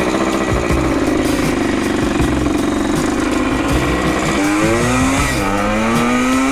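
Vintage Yamaha two-stroke enduro motorcycle riding at steady revs, then accelerating hard through the gears: the engine pitch climbs, drops at a shift about five seconds in, and climbs again. It is running with the 210 main jet back in its carburettor, and the rider finds it pulling much better.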